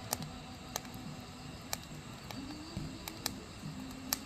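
Firewood burning in an open campfire, crackling with a sharp pop about once a second over a steady low hiss.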